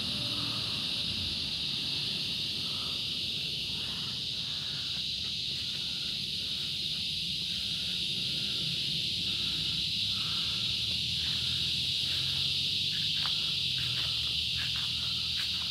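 Cicadas droning in a steady, unbroken high-pitched chorus.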